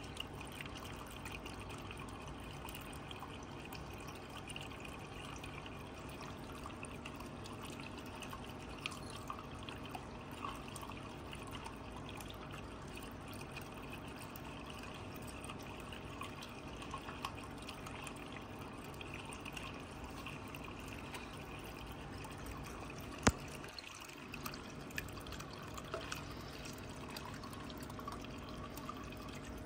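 Electric pet water fountain running with its lid off: the submersible pump burbles and trickles water steadily under a faint motor hum, with scattered small clicks and one sharp knock about 23 seconds in.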